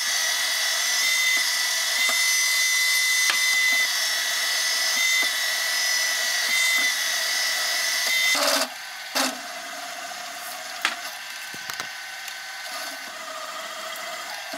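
Sieg X2.7L benchtop mill drilling a steel block with a twist drill, the spindle running with a steady high whine over the cutting noise. About eight and a half seconds in the sound drops abruptly to a quieter steady run, and a counterbore is cutting near the end.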